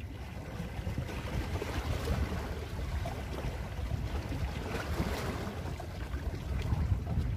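Wind buffeting the microphone over the wash of water: a steady, uneven rumble with no distinct pitch.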